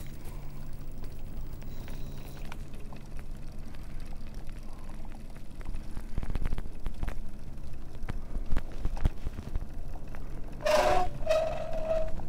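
Motor scooter engine running steadily at low speed with a constant low hum. Near the end comes a brief high-pitched squeal lasting about a second.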